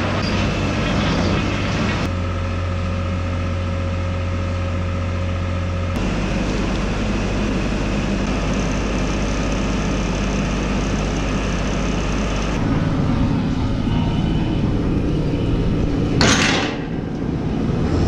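Skid steer loader engine running steadily, its note changing abruptly a few times, while the loader scrapes manure and shavings off a barn alley. A short, sharp noise comes near the end.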